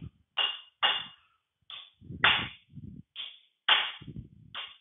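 A hammer striking a steel punch seven times in short, unevenly spaced metallic taps, tapping the rusted brake band pins back in the final drive housing of a 1953 Allis-Chalmers B to ease removal of their clips.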